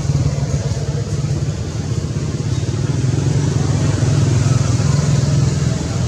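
A motor engine running with a steady low rumble.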